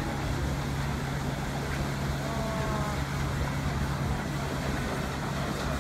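Wind buffeting the microphone in a steady low rumble, over a constant low hum.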